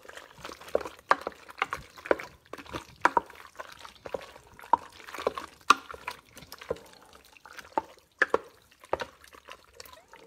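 A spoon stirring cheese tortellini through a thick, creamy tomato sauce in a deep pot: irregular wet squelches and splats, a few each second.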